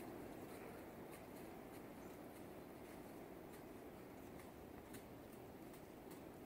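Near silence: a faint background hush with scattered soft ticks and rustles.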